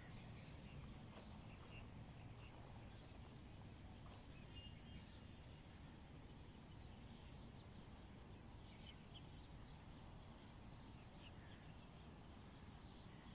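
Faint outdoor ambience: a steady low rumble with scattered faint bird chirps.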